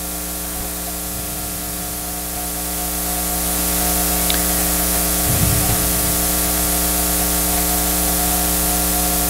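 Steady hiss with a low electrical hum from the microphone and sound system, with no speech. The hiss grows louder about three seconds in.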